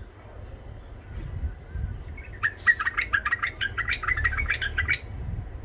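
White-eared bulbul singing a rapid, rough-voiced chattering phrase of many short notes, starting about halfway in and lasting about two and a half seconds.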